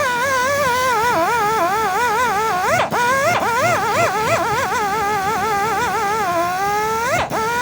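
Electric buffing/polishing machine whining, its pitch wavering and sagging as it is pressed against the work. Twice, about three seconds in and near the end, the pitch sweeps sharply up and then settles again.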